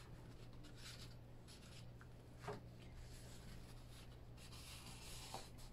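Faint rustling and rubbing of cardstock as a hand slides and smooths it, with a couple of soft taps.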